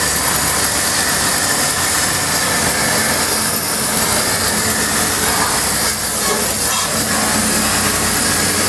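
High-pressure washer jet spraying water into a car radiator: a steady hiss of spray over the low hum of the washer pump. The jet is washing packed dirt out of the radiator fins.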